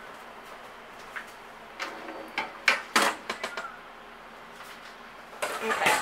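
Lower wire dish rack of a Kenmore 18-inch portable dishwasher being handled and pulled out of the tub on its wheels: a series of knocks and rattles, most of them two to three and a half seconds in, then a longer rolling scrape near the end.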